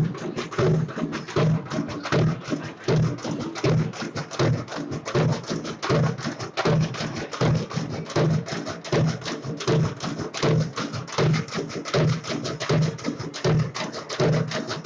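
Hand-held frame drums beaten in a steady processional rhythm, with a deep stroke about every three-quarters of a second and quicker, lighter strokes between.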